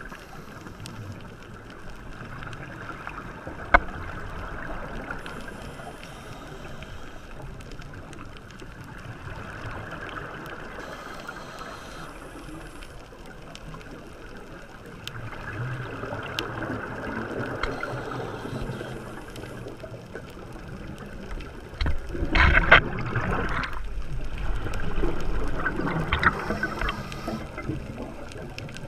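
Muffled water noise heard through an underwater camera housing, swelling and fading every few seconds. There is a sharp click about four seconds in and a louder rushing burst a little after twenty seconds.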